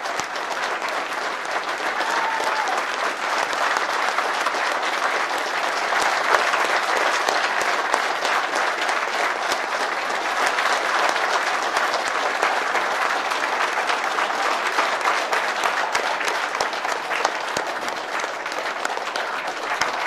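A large crowd applauding, dense clapping that holds steady without a break.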